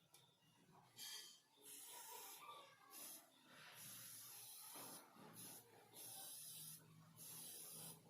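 Faint hissing in a run of four or five bursts, each about a second long, with short gaps between.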